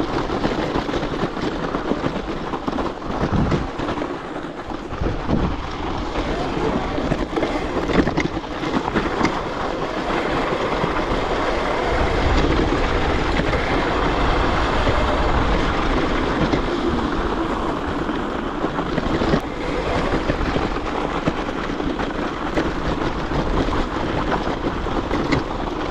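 Steady wind rush buffeting the microphone while a 72-volt electric Razor dirt bike is ridden over snow and ice.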